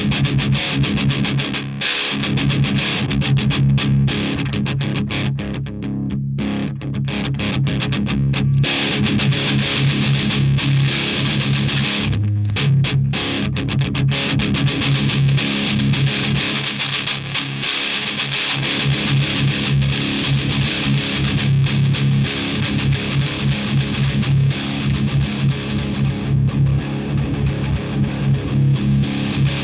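Electric guitar played through a Madbean Upper Decker, a very high-gain amp emulator pedal, giving a heavily distorted tone, with short breaks in the playing about 6 and 12 seconds in.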